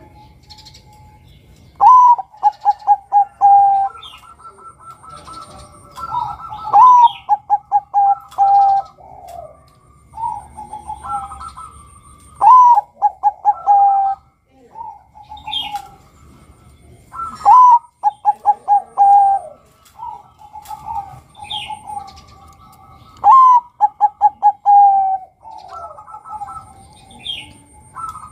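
A Bangkok-type zebra dove (perkutut) cooing. It repeats its phrase five times, about every five to six seconds: a rising opening note, then a quick run of short rolling coos. Faint chirps of small birds sound in between.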